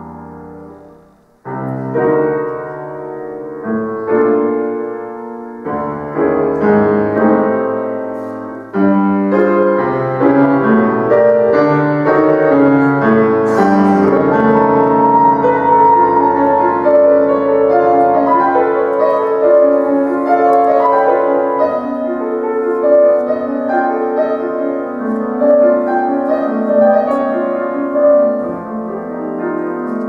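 Concert grand piano played solo, classical music: a chord dies away into a short pause about a second in, then strong chords come in short phrases, and from about nine seconds in the playing runs on without a break.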